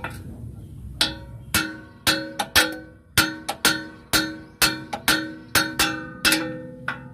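Hammer blows on a steel bar held against a truck drum-brake shoe assembly, knocking to free the shoe for a lining change. About fifteen sharp metal strikes, roughly two a second, each ringing briefly, starting about a second in.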